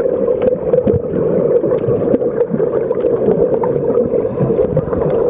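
Underwater sound picked up by a camera below the surface: a steady, muffled rush of moving water with scattered faint clicks.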